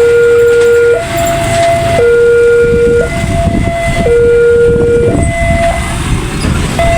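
A railroad crossing's newly replaced electronic warning siren alternates between a lower and a higher tone, each held about a second, warning that a train is crossing. Beneath it runs the low rumble of a passing train.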